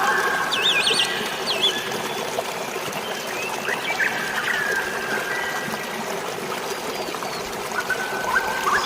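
Steady rush of running water with songbirds calling over it: a warbling trill about a second in, then scattered short whistles, and a few more notes near the end.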